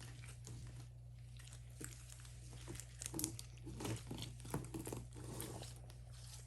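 Hands kneading and squishing slime mixed with sprinkles and little cubes, giving irregular sticky clicks, pops and crackles.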